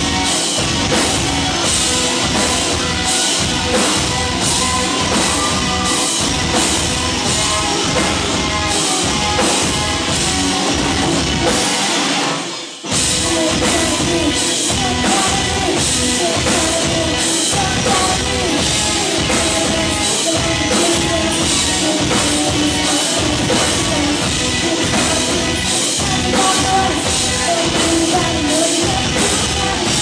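Live rock music at full volume: electric guitars, a drum kit and a woman singing. About twelve seconds in the band cuts out for a split second, then crashes back in.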